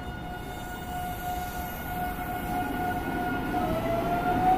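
Alstom Metropolis Series 8900 electric train pulling out of the platform: a steady electric whine, then from about three and a half seconds in a whine that rises in pitch and grows louder as the train gathers speed.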